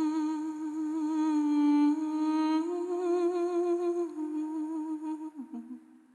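Slow, mournful melody hummed without words: long held notes with a wavering vibrato, stepping up in pitch partway through and fading away near the end.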